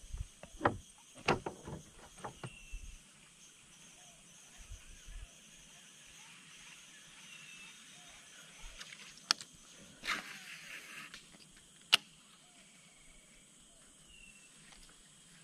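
Fishing tackle handled during casting with a baitcasting rod and reel: a cluster of sharp clicks and knocks, then single clicks about nine and twelve seconds in, with a hiss of about a second between them. Under it run a steady high insect drone and short falling chirps that repeat every few seconds.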